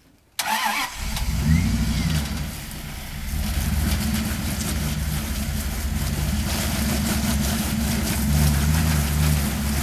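Off-road 4x4's engine running, cutting in abruptly about half a second in, with the throttle swelling and easing twice.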